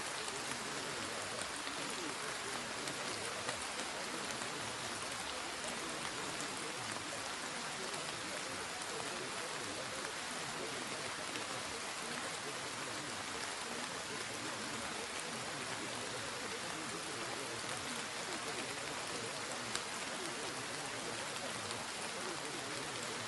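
Steady recorded rain: an even hiss with faint scattered drop ticks, serving as the masking bed of a subliminal audio track.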